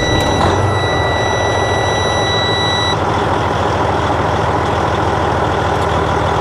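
12.7-litre Detroit Series 60 diesel idling just after a cold start on fresh oil, heard from inside the cab. The dash warning buzzer sounds a steady high beep and stops about three seconds in, as the red warning lights go out and the oil pressure comes up.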